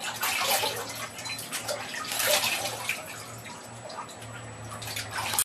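Water splashing and trickling in a bathtub as a newborn's head is washed with a wet cloth, in irregular small splashes.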